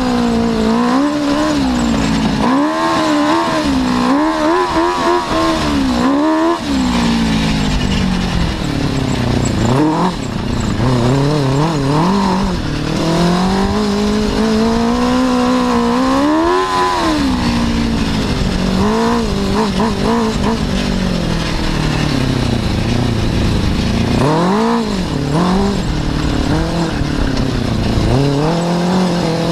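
Suzuki RF600 inline-four motorcycle engine powering an off-road buggy, revving up and falling back over and over as it is driven hard. The pitch climbs and drops every few seconds.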